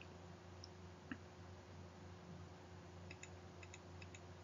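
Near silence over a low steady electrical hum, with faint computer mouse clicks: one about a second in, then a quick run of them in the second half.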